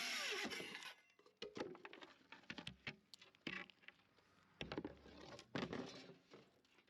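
A power drill's motor winding down, falling in pitch and stopping about a second in, followed by scattered light clicks and knocks of handling.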